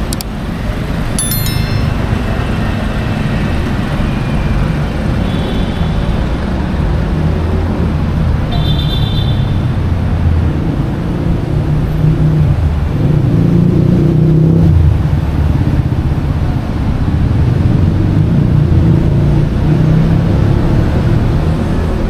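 Steady urban road traffic: a continuous rumble of passing vehicles that swells and eases. It is broken a few times by short high-pitched tones.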